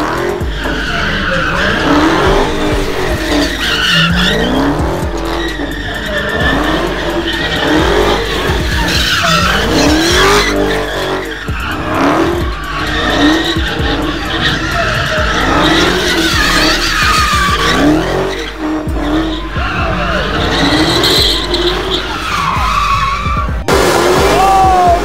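Dodge Charger doing donuts: its engine revs up and down in a repeating cycle about every two seconds, with tyres squealing and skidding on the pavement. Near the end the sound cuts abruptly to another car's burnout.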